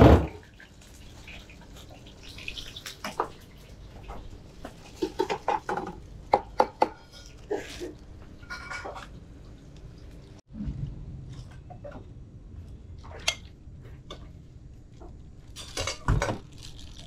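Bowls and metal utensils clinking and clattering as noodle-soup bowls are handled and served, with scattered sharp clinks and a loud knock right at the start and another near the end.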